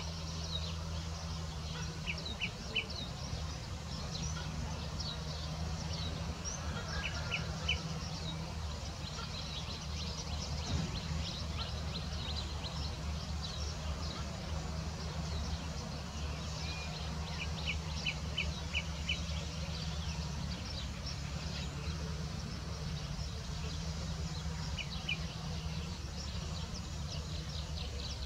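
Small birds chirping in quick runs of two to five high notes every few seconds, with scattered higher chirps between, over a steady low hum.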